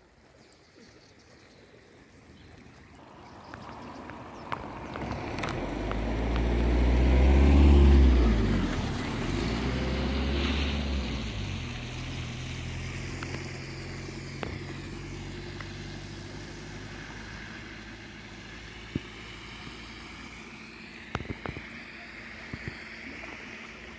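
A motor vehicle approaches and drives past close by. Its engine note is loudest about eight seconds in and drops in pitch as it passes, then fades away slowly.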